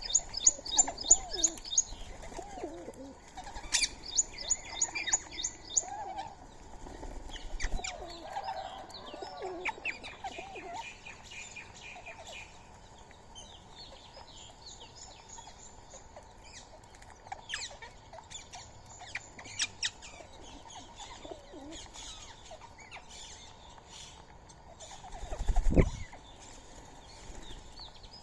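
Wild birds chirping and calling at a feeding spot, with rapid trains of high, evenly repeated chirps in the first few seconds and scattered calls after. Near the end comes one loud flurry of wings flapping.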